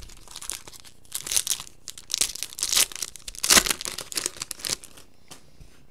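A 2015 Topps Chrome baseball card pack's foil wrapper being torn open and crinkled by hand: a run of sharp crackling from about a second in until near the end.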